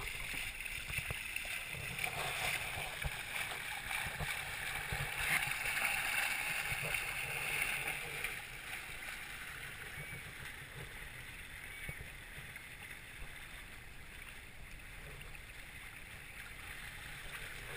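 Water rushing and splashing along the hulls of a Hobie Tandem Island sailing kayak under way, heard through a GoPro's waterproof case. There is splashing from a foot kicked in the water near the start, and the sound eases off a little after about eight seconds.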